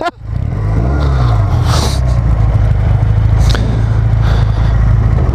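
Motorcycle engine running with a steady low drone, its pitch briefly rising and falling about a second in; two light clicks over it.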